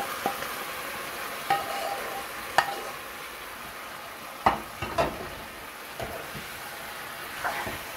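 Mixed vegetables sizzling in hot oil tempered with panch phoron as they are tipped in from another pan and stirred with a spoon. Several sharp knocks of metal against the pan stand out from the steady sizzle, the loudest about two and a half and four and a half seconds in.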